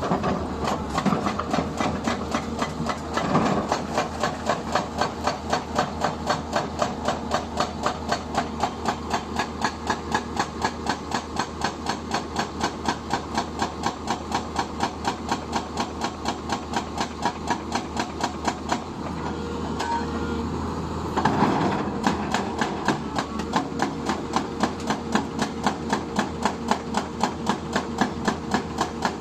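Excavator-mounted hydraulic breaker with a 155mm chisel hammering in rapid, evenly spaced blows over the excavator's running engine. The blows stop for about two seconds two-thirds of the way through, then start again loudly.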